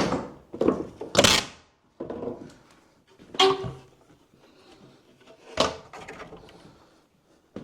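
Old dry, split wooden boards knocking and clattering as they are pulled down and dropped during demolition: a series of separate clunks, the loudest a little after a second in.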